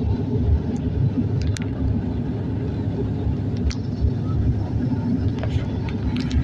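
Steady low rumble of a Bombardier airliner's cabin noise, with a few faint clicks scattered through it.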